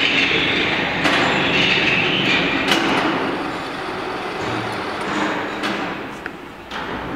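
Electric three-wheeled mini dumper with shaft drive driving slowly on concrete: its motor and drivetrain running with the rattle of the steel frame and tipper bucket, and a few sharp knocks along the way.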